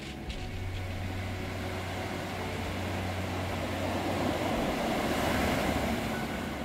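Sea surf breaking and washing up a pebble beach, the rush of water swelling to its loudest about five seconds in.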